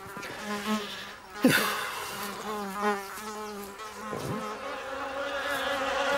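A cartoon housefly buzzing, its pitch wavering as it circles, with two sharp swooping dives past. The buzzing grows louder near the end as more flies join.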